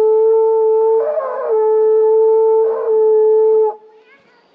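Horagai (conch-shell trumpet) blown in one long held note that wavers briefly twice, then stops abruptly near the end.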